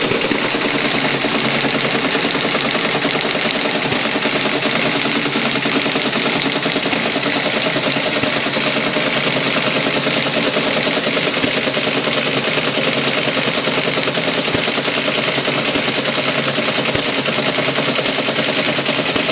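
Teletype Model 33 ASR printing a BASIC program listing: a rapid, even clatter of the print mechanism striking character after character, over a steady hum.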